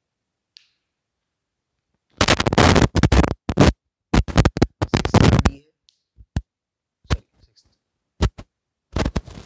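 Marker scraping on a whiteboard while letters are written: a run of loud, scratchy strokes starting about two seconds in, a few short ticks after, and another scratchy burst near the end.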